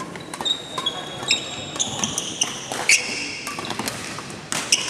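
Court shoes squeaking on a wooden badminton court floor during a rally, mixed with sharp racket-on-shuttlecock hits and footfalls. Several short squeaks come in quick succession, with the loudest hit about three seconds in.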